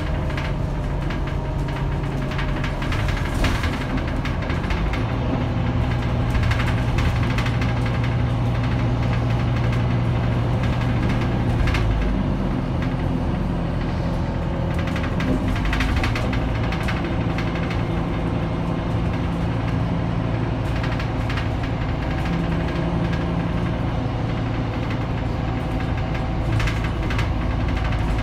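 Scania K310UB city bus heard from inside the cabin while moving, its rear-mounted five-cylinder diesel running with a steady low drone. The engine note shifts in pitch twice partway through, as when the gearbox changes gear. Occasional short clicks and rattles come from the bus body.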